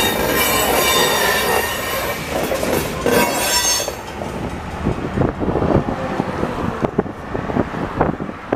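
Covered hopper cars of a freight train rolling past with their wheels squealing on the rails, high steady squeal tones over the rumble. The sound cuts off about four seconds in, leaving quieter, uneven road and wind noise with a car passing near the end.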